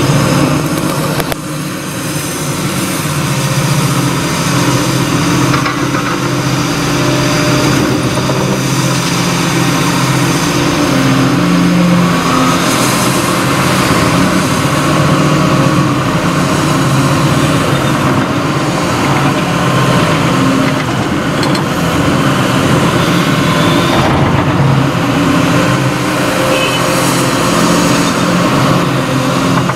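Caterpillar 330F tracked excavator's diesel engine running steadily.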